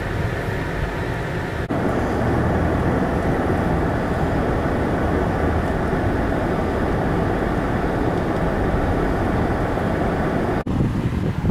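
Car driving noise: a steady engine and tyre rumble on the road. It gets louder and fuller about two seconds in, while the car passes through a rock tunnel, and dips briefly near the end.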